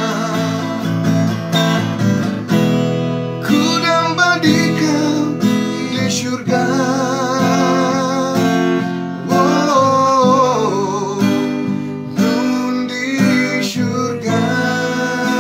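Nylon-string classical guitar strummed and picked in a song accompaniment, chords changing every second or two.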